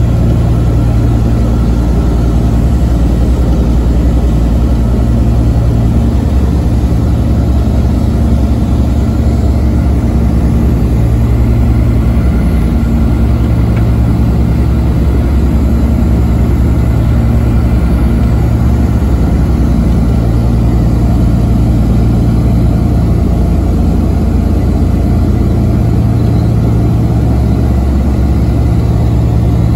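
Douglas DC-3's radial piston engines and propellers droning steadily in cruise, heard from inside the cabin, the low drone slowly swelling and fading.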